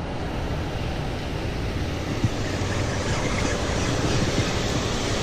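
Steady rumble of wind on the microphone with waves and water by the docks, no distinct events.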